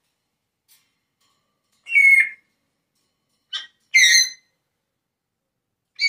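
African grey parrot making two short whistle-like utterances about two seconds apart, which the caption gives as the parrot calling someone a "smart ass".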